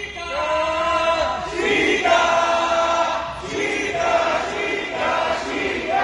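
A crowd of fans chanting in unison, a sung chant in repeated phrases about a second and a half long.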